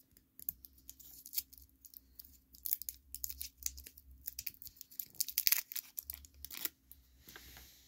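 Waxed paper wrapper of a Starburst fruit chew crinkling and crackling as fingers twist and peel it open, in quick irregular crackles that come thickest about three seconds in and again between five and six and a half seconds.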